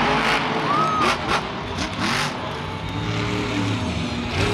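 Iron Man monster truck's engine revving hard at full throttle, with a few sharp bangs about one to two seconds in.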